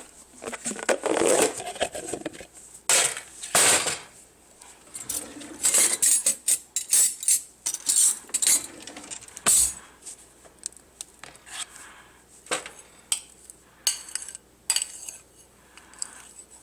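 Dishes and cutlery clattering and clinking as they are handled: a busy, uneven run of sharp knocks, clinks and scrapes.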